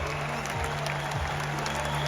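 Stadium crowd applauding over music played on the public-address system.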